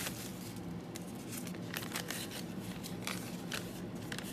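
Bubble-wrap mailer and a paper note crinkling and rustling as they are handled and the note is pulled out and unfolded, a string of irregular crackles.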